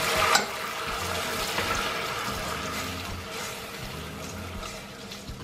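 Hot noodle cooking water poured from a ladle into a stainless steel pot of oil and tomato and pepper paste. It splashes at first, then runs on as a pouring, trickling hiss that slowly dies away.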